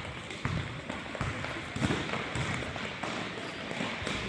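Many players' sneakers pounding on a hardwood gym floor as they run the length of the court, a quick scatter of low thumps that echo in the large hall.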